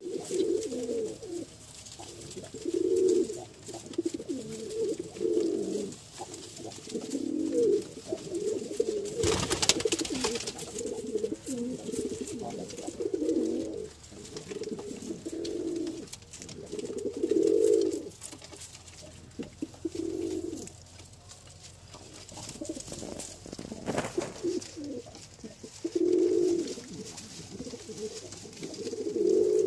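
Domestic pigeons cooing over and over, several birds overlapping in low, rolling calls. About nine seconds in there is a burst of wing flapping, and a shorter one near the 24-second mark.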